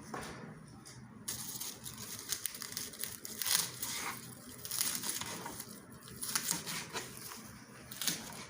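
A knife cutting through crisp lettuce into big chunks. It makes irregular crunching and crackling strokes that begin about a second in.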